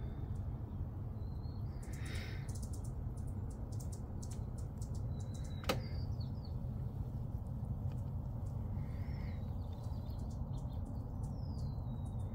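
Steady low background rumble with a few faint, high bird chirps and one sharp click about halfway through.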